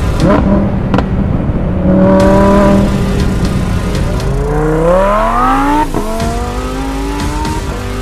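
Lamborghini Huracán's naturally aspirated V10 revving and accelerating hard: the engine note climbs steeply from about four seconds in, breaks sharply at an upshift near six seconds, then climbs again more slowly. A couple of sharp cracks come in the first second.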